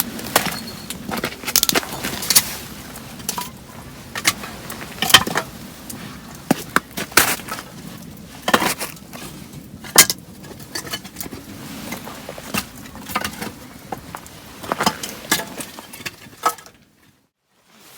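Scattered clinks, taps and knocks of camp tableware and cookware being handled, with a few louder sharp clacks; the sound cuts off abruptly near the end.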